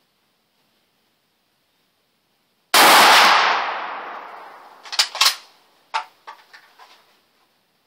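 A Mosin Nagant M44 carbine firing one 7.62x54R round: a single very loud shot about three seconds in that rings out under the range roof for a second or more. A couple of seconds later come several sharp metallic clicks and clacks as the bolt is worked to eject the spent case.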